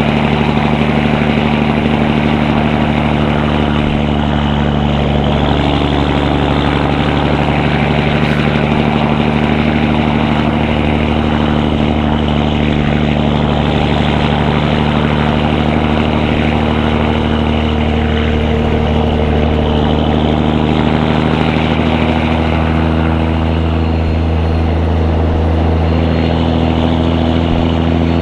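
Caterpillar 3406E inline-six diesel in a Peterbilt truck, exhausting through 6-inch stacks and an Aeroturbine 5050XL muffler, running steadily as the truck drives loaded at about 103,000 lb gross. The engine note holds with small shifts in pitch.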